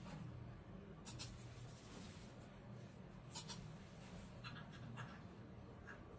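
Faint clicks and light taps of the metal parts of a queen bee artificial insemination instrument being handled and fitted together: a pair of clicks about a second in, another pair about three and a half seconds in, and a small cluster near the end, over a low steady hum.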